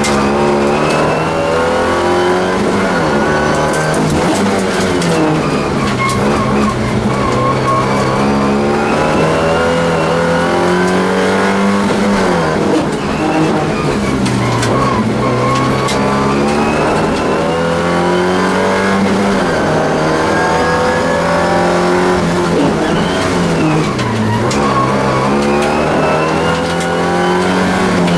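Alfa Romeo 75 race car's engine at full effort, heard from inside the cabin: the revs climb hard under acceleration and drop sharply several times as it comes off the throttle and changes gear.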